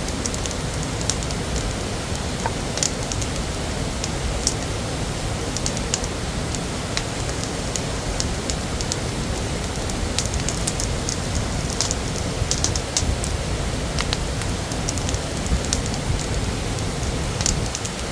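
Steady rushing of a waterfall, with many small, sharp, irregular crackles over it.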